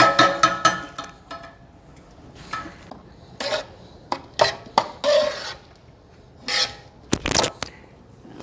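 Metal clanking and scraping of a large deg cooking pot and a big metal lid being handled. A quick run of ringing clanks comes in the first second, then scattered scrapes and knocks.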